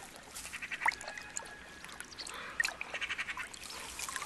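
Wild birds chirping, with short chirps and quick buzzy trills, one chirp rising sharply about a second in. Under them, a brown bear laps water at the pond's edge with small splashy clicks.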